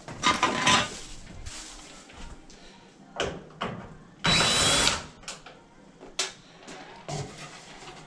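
Cordless drill/driver running in short bursts to back screws out of a dryer's sheet-metal panel. The longest run, about half a second, comes a little past the middle. Clicks and knocks of the tool and panel being handled fall in between.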